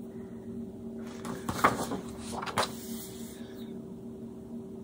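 A few light knocks and rustles of objects being handled, the sharpest about a second and a half in and again a second later, over a steady low hum.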